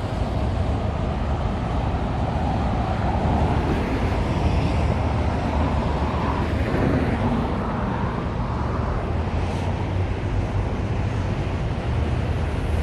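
Steady rumble of road traffic passing.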